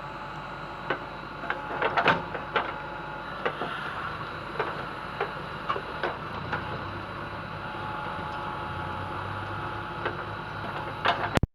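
Heavy machinery's diesel engine running steadily, with scattered sharp metallic clanks and knocks that are thickest about two seconds in. The sound cuts off suddenly at the very end.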